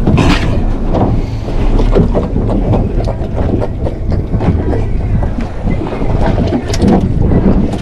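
Wind buffeting the microphone on a small fishing boat, a steady low rumble with scattered knocks and clatter on the deck.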